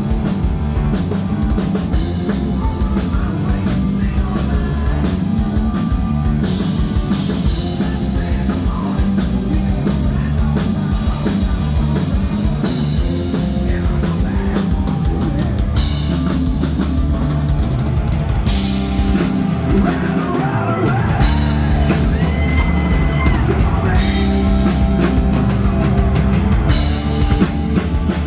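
Live rock band playing with drum kit, bass drum and electric guitar, loud and continuous.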